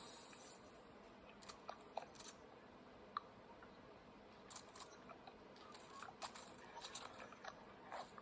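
Faint, irregular small clicks and crackles over near silence, a little busier in the second half.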